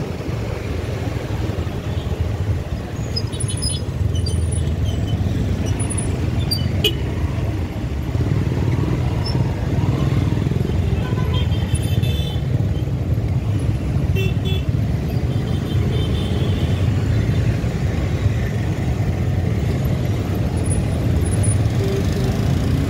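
Ride noise from a motorcycle on the road: a steady low rumble of engine and wind on the microphone, with a few faint, short high toots.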